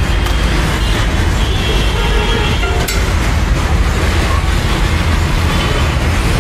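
Street traffic noise: a steady, loud low rumble of passing vehicles.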